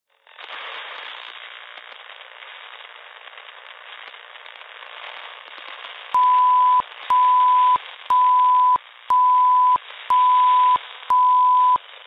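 Edited intro sound effect: thin, crackly static like an old radio or worn film. About halfway through, six identical steady high beeps sound once a second, each about two-thirds of a second long and clicking on and off.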